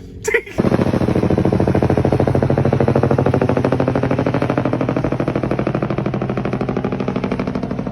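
A power tool hammering in a fast, steady rattle of rapid impacts that starts about half a second in, just after a short sharp click, and eases off slightly near the end.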